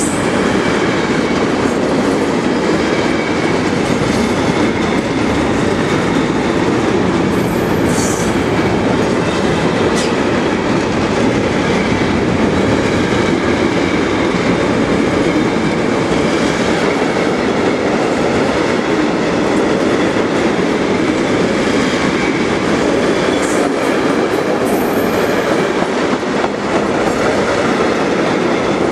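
Container wagons of a freight train rolling past close by: a steady loud rumble and clatter of steel wheels on the rails. Brief high-pitched wheel squeals come in about eight seconds in and again near the end.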